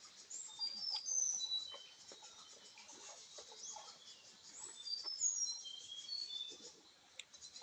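Birds chirping: many short, high calls, some sliding in pitch, loudest about a second in and again around five seconds.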